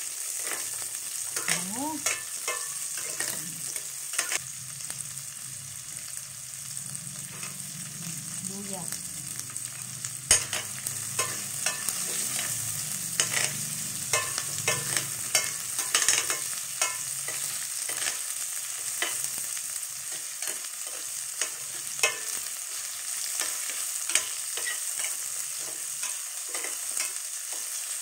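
Chopped onion and garlic sizzling in a little oil in a stainless-steel pan, with a steady high hiss, while a metal spatula stirs them, scraping and clicking against the pan many times.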